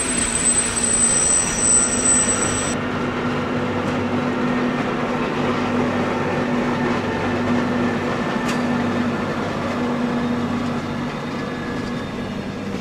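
MGB HGe 4/4 II electric rack-and-adhesion locomotive hauling passenger coaches on the metre-gauge mountain line, running with a steady low hum over rolling noise. A thin high whine sounds in the first few seconds and stops abruptly.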